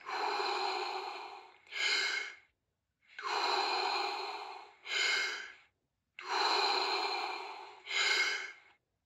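A person breathing deeply through the mouth in the Wim Hof method's rapid deep-breathing round. Three breath cycles about three seconds apart, each a long breath of about a second and a half followed by a shorter one.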